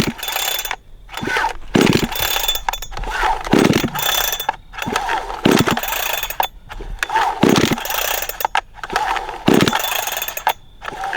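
Two-stroke chainsaw being pull-started: about six hard pulls of the recoil starter cord, roughly two seconds apart, with the engine not catching.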